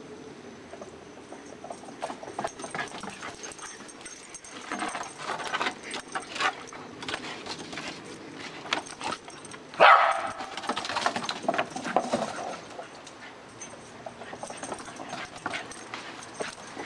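Boxer puppy playing and grabbing at a plastic frisbee, whining and yipping over clicks and scuffles, with one loud yelp about ten seconds in that falls in pitch.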